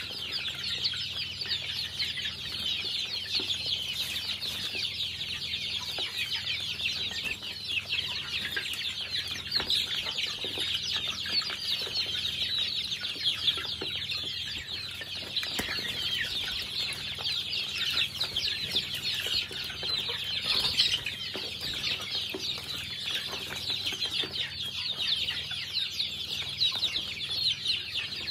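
A flock of young chickens peeping nonstop as they feed, many short high-pitched falling chirps overlapping into a dense chorus.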